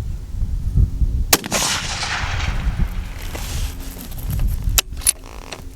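A single fullbore target rifle shot about a second in, its echo rolling away across the range, with wind rumbling on the microphone throughout. A few smaller sharp clicks come near the end.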